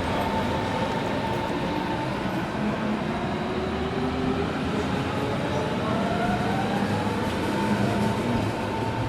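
A train running on rails, a steady heavy rumble. Midway, a whine rises in pitch over a few seconds.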